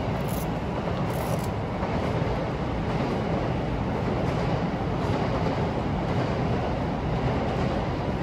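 Steady low rumble of passing traffic, holding at an even level throughout.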